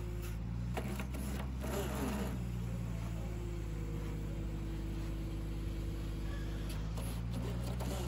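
Bulk feed truck's engine running steadily with a low hum, with a few clicks and knocks about one to two seconds in.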